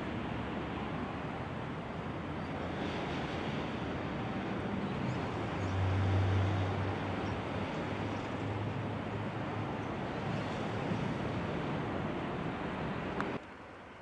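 Steady outdoor background noise with a low rumble that swells around six seconds in, then drops away abruptly shortly before the end.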